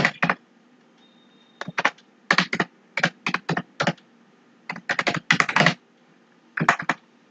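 Typing on a computer keyboard: quick runs of keystrokes in several short bursts, with brief pauses between them.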